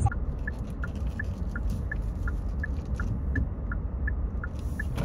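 Car turn-signal indicator ticking in the cabin, about three even clicks a second alternating between two pitches, over the low rumble of the moving car.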